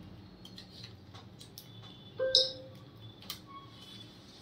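Light clicks and taps of small laptop parts and cable connectors being handled and pressed into place during reassembly. There is a brief louder sound about two seconds in.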